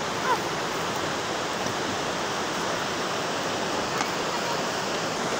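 The Swat River rushing over shallow rapids: a steady, unbroken wash of water noise.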